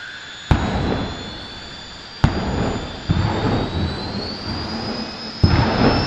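Jet Funny Cars' jet engines being blipped at the start line: three sharp afterburner bangs, each followed by a rumbling roar, with another surge of roar between them. Under them a thin high jet whistle rises in pitch as the turbine spools up.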